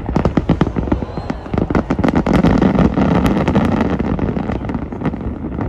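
Fireworks going off in quick succession: a rapid run of sharp cracks and bangs, then a dense rumbling barrage starting about two seconds in that slowly fades.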